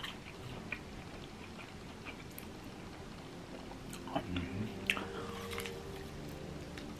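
Quiet, close-miked eating sounds: scattered mouth clicks and smacks, then a bite into a chicken wing near the end.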